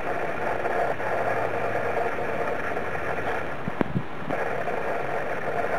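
Steady background drone of a mechanical kind, with two short clicks a little under four seconds in.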